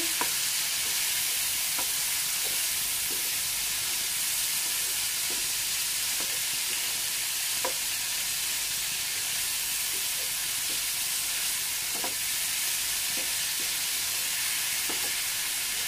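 Lamb liver pieces with onion sizzling in hot oil in a frying pan as they are stirred: a steady frying hiss with a few faint ticks from the stirring spoon against the pan.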